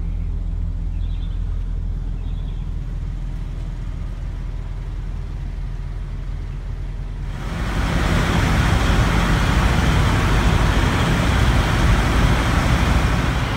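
Steady low hum of an idling diesel engine. About halfway through, a louder steady rushing engine noise takes over.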